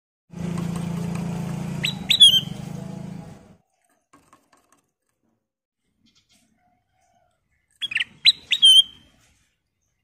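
Ruby-throated bulbul (kutilang emas) giving short, sharp whistled notes: a quick cluster about two seconds in and a burst of four or five near the end. A low steady hum runs under the first three seconds.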